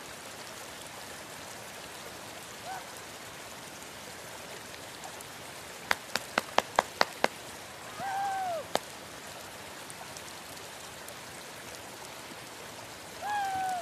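Steady rushing noise with a quick run of about eight sharp clicks midway. Two drawn-out high calls rise and then fall away, one just after the clicks and one near the end.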